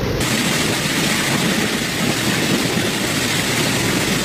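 Floodwater rushing across a street in heavy rain: a steady, even rushing noise that starts abruptly a moment in.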